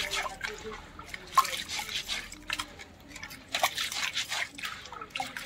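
Hands rubbing soaked split black gram (urad dal) in a metal bowl of water, splashing in irregular bursts as handfuls are lifted and dropped back. The dal is being washed to rub off its black husks.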